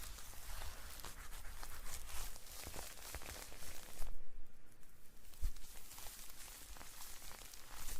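Close-miked ASMR trigger sounds: a steady fine crackling and rustling, broken off for about a second near the middle, with a soft thump shortly after.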